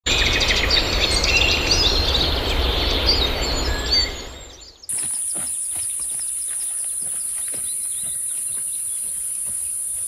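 Many birds chirping over a loud rushing noise, which fades out about four and a half seconds in. Then a steady high-pitched insect buzz, with faint bird chirps and soft footsteps.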